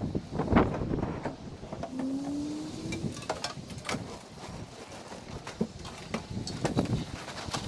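Outdoor ambience with wind on the microphone and many scattered clicks and knocks, plus a short low hum rising in pitch about two seconds in.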